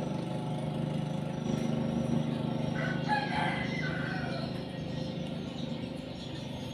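A rooster crowing once, about three seconds in, over a steady low hum.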